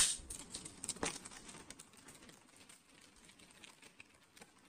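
Cellophane wrap crinkling as it is peeled off a clear plastic cube box, with light plastic clicks and taps. Loudest in the first second, with one sharper click about a second in, then fading to faint scattered rustles.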